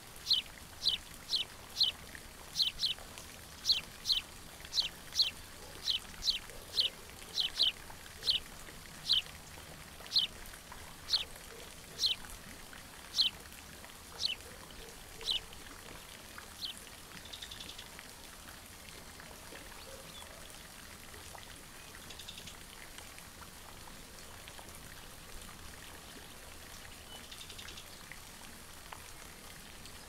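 A wild animal calling from the wetland: a string of short, sharp, high chirps, each falling in pitch, about two a second at first, then spacing out and stopping about halfway through, over a faint steady background hiss.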